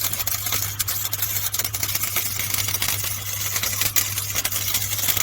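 Electric scroll saw running and cutting wood: a steady motor hum under the fast, even rattle of the reciprocating blade.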